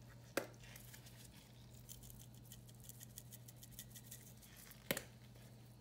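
Seasoning being shaken from a bottle into a saucepan: two sharp clicks, about half a second in and near the end, with faint quick ticking between them for a couple of seconds after the first. A low steady hum lies underneath.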